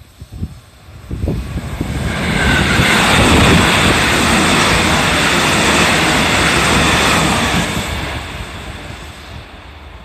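JR 313 series electric multiple unit passing close by on the line: the rush of wheels on rail and running noise builds over about two seconds, holds loud for several seconds as the cars go past, then fades as the train moves away.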